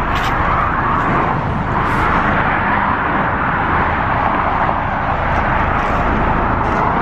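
Steady road and tyre rush of a car driving at speed, heard from inside the car, swelling and easing gently.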